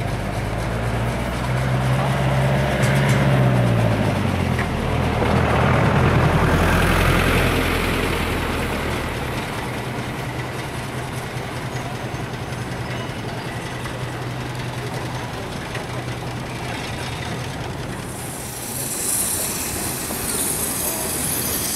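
A heavy road vehicle passes close, its low engine note dropping in pitch about three seconds in and fading after about nine seconds, with a hiss as it goes by. A steady quieter rumble follows, and a strong hiss starts near the end.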